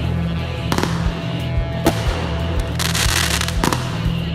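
Consumer aerial fireworks going off: sharp bangs about a second and two seconds in, then a dense crackling burst followed by another bang near the end. A song with a steady beat plays under the fireworks.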